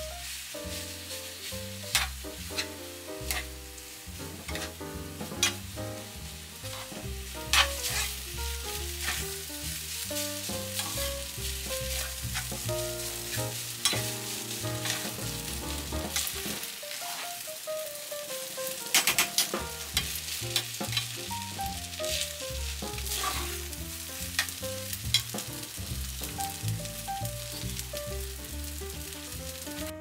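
Fried rice sizzling in a stainless steel pan as it is stirred and tossed with a slotted spatula, with scattered sharp taps and scrapes of the spatula against the pan, loudest about a third of the way in and again near two-thirds. Light background music plays underneath.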